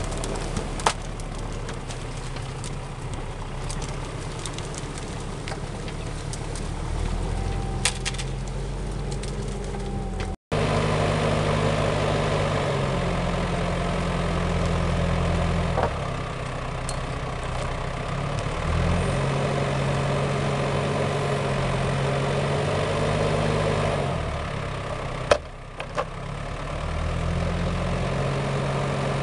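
Valtra forestry tractor's diesel engine running under changing load, its pitch stepping up and down every few seconds as it hauls the trailer through mud and then drives the hydraulic log crane. A few sharp knocks are heard over it, and the sound cuts out for a moment about ten seconds in.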